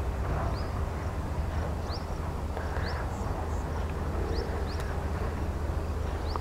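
Outdoor background: a steady low rumble with a small bird's short rising chirp repeating every second or so.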